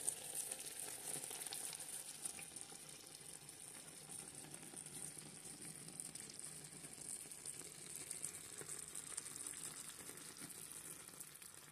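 Chicken pieces and potatoes stewing in oil and water in a frying pan, sizzling faintly and steadily with fine crackles, fading out near the end. A light knock at the very start as the glass lid is lifted.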